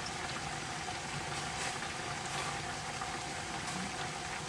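Steady bubbling hiss of a pot of greens boiling and a pan of braise simmering on the stove, with a few faint clicks of chopsticks against the pot.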